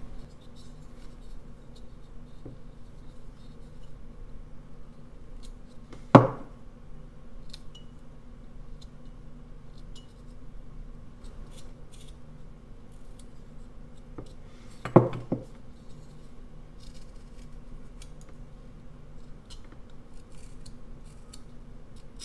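A carving knife whittling basswood by hand: a run of short, crisp slicing and scraping cuts. Two loud knocks stand out, about 6 seconds in and about 15 seconds in, the second one doubled.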